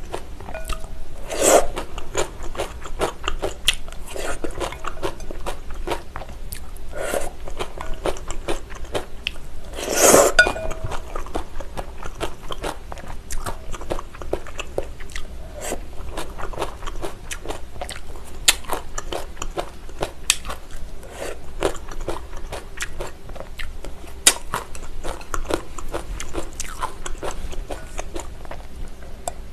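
Close-miked chewing of cold agar-agar jelly noodles with cucumber and green chili: soft crunching and wet mouth clicks, with two louder, longer noises about a second and a half in and again about ten seconds in.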